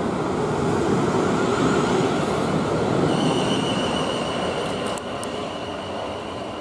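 South Western Railway Class 450 Desiro electric multiple unit pulling away past the platform: a dense rumble of wheels on rail that eases as the rear coaches go by. A steady high whine joins it about three seconds in, with a couple of brief clicks.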